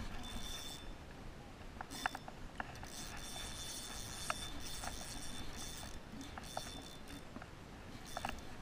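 Spinning reel buzzing in patches and clicking while a hooked salmon pulls against a bent rod, with scattered light clicks and handling taps.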